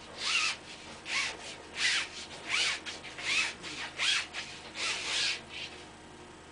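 About eight quick, rhythmic rubbing strokes, as when sandpaper scuffs a bicycle inner tube around the hole to roughen it before the patch glue goes on. The strokes stop near the end.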